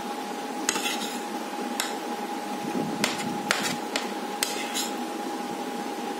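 Metal spoon clinking and scraping against a ceramic plate while scooping up noodles: several short, sharp clinks spread over a few seconds.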